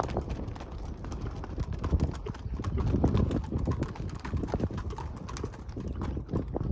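Ridden horse's hooves clip-clopping quickly on stony ground as the horse moves briskly past, loudest as it passes close by about three to four seconds in.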